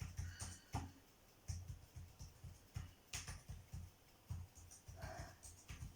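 Faint scratchy strokes of contour makeup being drawn on a face, over irregular soft low bumps from hands and handling.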